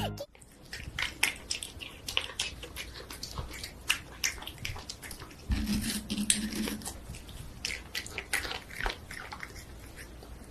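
Cat licking and chewing a wedge of watermelon: a run of short, wet, irregular smacks and clicks, with a short low hum from the cat about halfway through.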